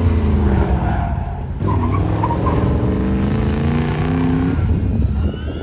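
Third-generation Pontiac Firebird running hard on an autocross course, its engine pulling under load with some tyre squeal. The engine note breaks off briefly about a second and a half in, then climbs again and drops away near the end.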